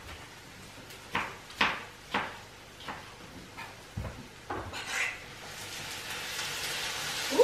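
A few sharp knife strokes on a cutting board as tomatoes are cut, a dull thump about four seconds in, then tomato pieces starting to sizzle in a hot pan, the hiss building toward the end.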